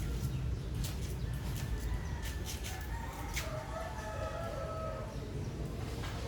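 A rooster crowing and chickens clucking, with a few sharp clicks, over a steady low rumble.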